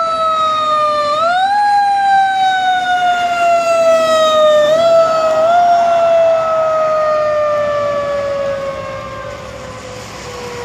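Emergency vehicle siren sounding one long wail that slides slowly downward, kicks back up in pitch about a second in and twice more near the middle, then keeps falling and fades toward the end.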